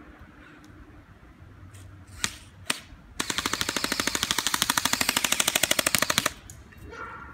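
Toy rifle firing: two single shots about two seconds in, then a rapid full-auto burst of about fifteen shots a second lasting some three seconds.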